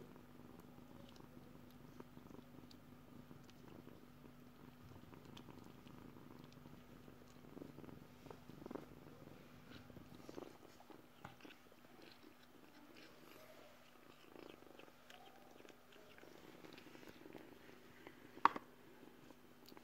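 Kitten purring softly and steadily while it eats, with small scattered clicks of eating. A single sharp click near the end.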